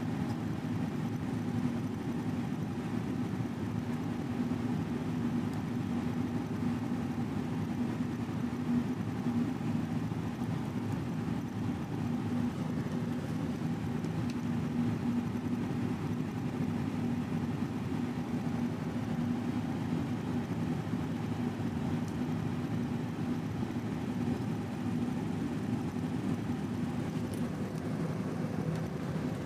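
Steady low mechanical drone with a constant pitched hum, unchanging throughout.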